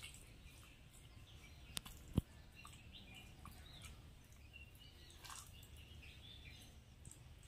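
Faint bird chirping over quiet background noise, with two sharp clicks a moment apart about two seconds in, the second louder.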